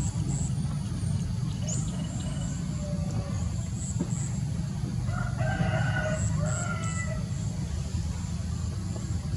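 A rooster crows once, a drawn-out call of under two seconds starting a little after five seconds in. Under it runs a steady low rumble, with short high chirps scattered throughout.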